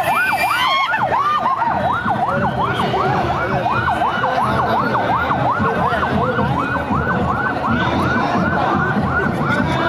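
Police vehicle siren in a fast yelp, its pitch sweeping up and down about three times a second, with a steady noisy hum underneath.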